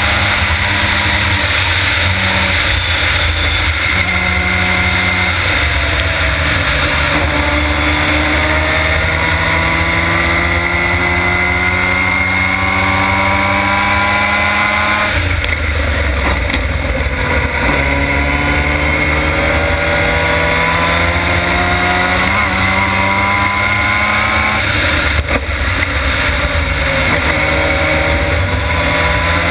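Formula Mazda race car's rotary engine pulling hard, heard from the onboard camera. Its pitch climbs steadily through long stretches and drops sharply at each gear change, over a constant low rush of wind on the open cockpit.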